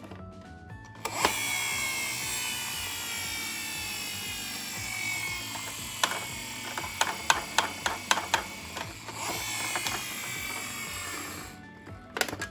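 Toy ambulance mini car running, a steady whirring that slowly falls in pitch, with a run of sharp clicks and clatters in the middle.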